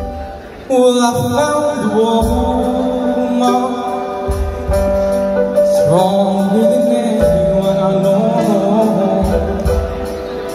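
Live amplified song: a male vocalist singing into a microphone over sustained keyboard chords and low bass notes. The voice comes in just under a second in, after a brief dip.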